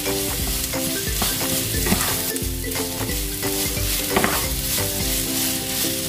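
Sliced onions sizzling as they fry in oil in a nonstick pan, stirred and scraped with a wooden spoon that knocks against the pan now and then.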